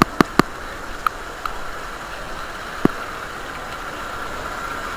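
Steady rushing noise of water pouring over the dam spillway, mixed with rain and wind buffeting the microphone, with a few sharp taps in the first three seconds.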